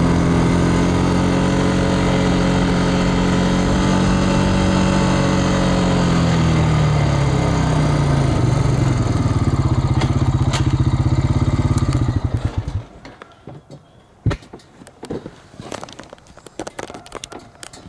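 An engine running steadily, then slowing, its pitch falling over several seconds until it stops about thirteen seconds in. A few sharp knocks and clicks follow.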